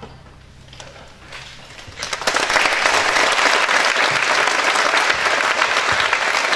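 Audience applauding, breaking out about two seconds in after a brief hush and then holding steady.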